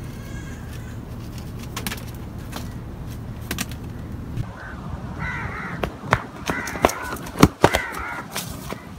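A crow cawing about five times in the second half, short arched calls in quick succession over a low steady hum. Several sharp knocks fall among the caws, the loudest a close pair shortly before the end.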